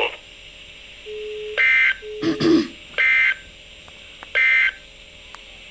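Emergency Alert System end-of-message code: three short screeching data bursts, each about a third of a second long and about a second and a half apart, closing the flood warning. Before some of the bursts comes a lower steady beep, and between the first two there is a brief low warbling sound.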